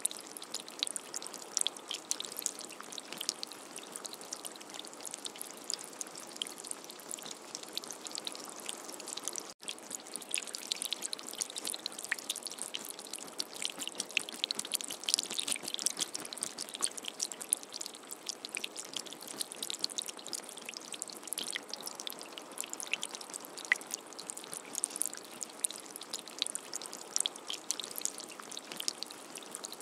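Light rain pattering: a steady crackle of many small drops, with a brief dropout about ten seconds in.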